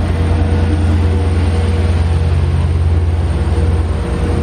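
Commuter train running at a station platform: a loud, steady low rumble with a faint steady whine above it.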